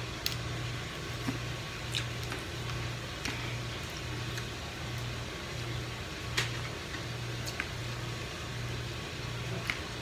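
A low mechanical hum that pulses a little more than once a second, with a few sharp clicks and cracks of steamed blue crab shell being picked apart by hand.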